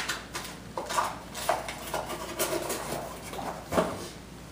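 Packaging and parts being handled while a box is unpacked: an irregular string of rustles and light knocks, with a sharper knock near the end.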